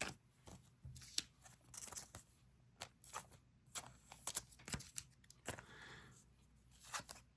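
Faint handling of trading cards: scattered soft flicks and taps as cards are shuffled and set down, with a brief soft rustle near the end.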